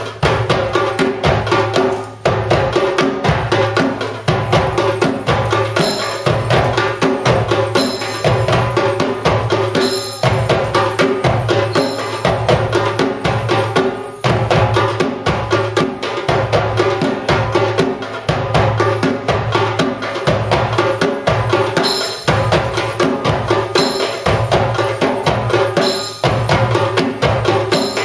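Ensemble of darbuka hand drums playing live in a steady, driving rhythm of many quick strokes.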